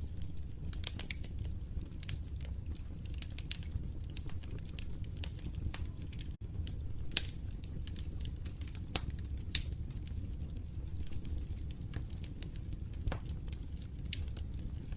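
Wood fire crackling in a fireplace: irregular sharp pops and snaps over a steady low rumble of burning. There is a split-second dropout about six seconds in.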